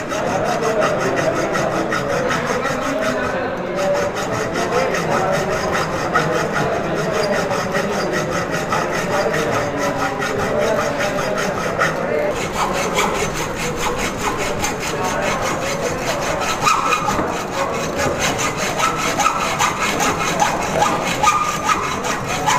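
Hand hacksaw cutting a 1-inch metal pipe clamped in a bench vise, the blade going back and forth in steady, continuous strokes.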